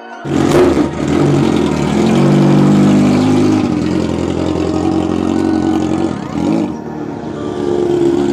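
Sport motorcycle engine running loud under throttle, starting suddenly and holding a steady drone, with a brief dip and surge about six seconds in.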